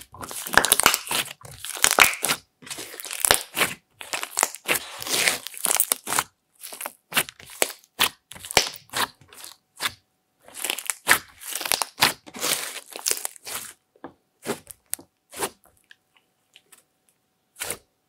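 Thick clay-mixed slime being squeezed, folded and pressed by hand, giving dense crackling and popping. The crackle thins to a few scattered pops over the last few seconds.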